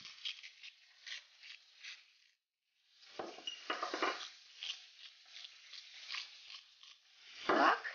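Hand-twisted salt and pepper mills grinding over a salad: rapid dry clicking for about two seconds, a short break, then more grinding. A louder knock near the end.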